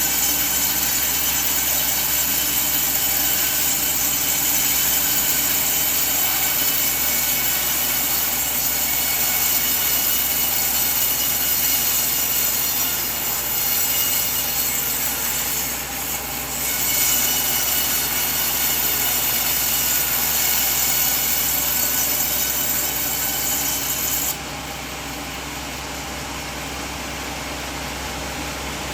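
Band sawmill blade cutting through a coconut log, a steady loud hissing saw noise over the low hum of the mill's motor. Near the end the cutting noise drops suddenly, and a quieter, duller running goes on.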